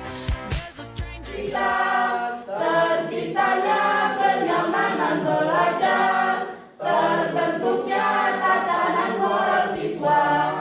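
Music: a beat with drum hits for about the first second, then a group of voices singing together like a choir, with a short break about two-thirds through.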